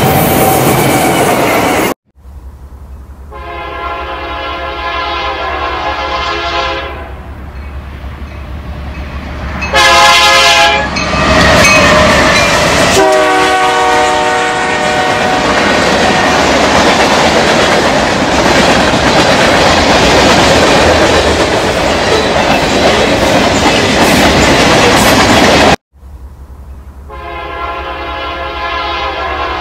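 Recorded train sound effects: a train horn blowing chord blasts four times, with a long stretch of a train's rumbling wheel noise between them. The sound cuts off abruptly twice, like edited-in clips rather than the wooden toy trains themselves.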